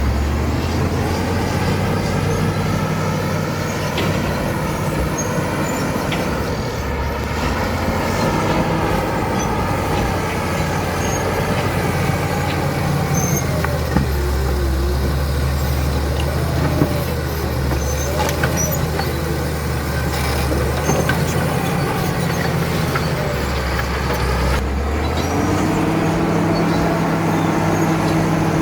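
Caterpillar D7 bulldozer's diesel engine running steadily, its pitch shifting up and down as the load changes, with a few sharp knocks along the way.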